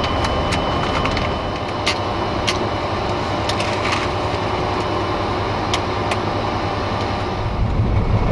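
Boeing 747-400 cockpit noise on the ground during engine start: a steady rush with a thin high tone, broken by scattered sharp clicks. About seven and a half seconds in, a deeper, louder rumble comes up.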